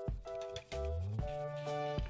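Background music: sustained chords over a steady beat, with a low bass line coming in about halfway through.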